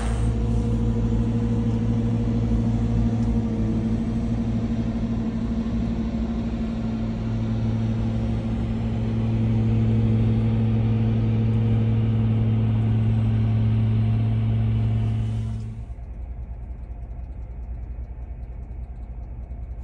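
Caterpillar wheel loader with a snow blower attachment, its engine running in a steady low drone. About sixteen seconds in, the sound drops to a quieter, duller drone.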